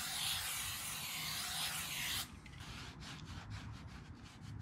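Aerosol brake cleaner hissing as it is sprayed, cutting off suddenly about two seconds in, then a microfiber cloth rubbing over the flywheel's metal face in quick irregular wiping strokes.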